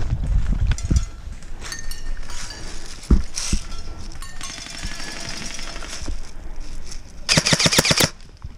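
Airsoft gun firing a short full-auto burst of about ten rapid shots near the end, after a few scattered single sharp knocks.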